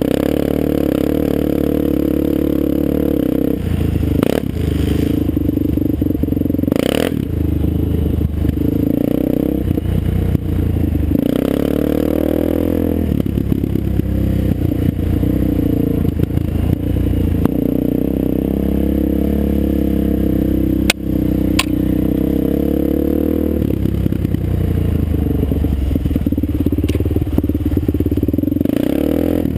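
Sport ATV engine running hard up close from on board, its pitch rising and falling as the throttle is worked, with clatter from the quad jolting over rough ground and a few sharp knocks.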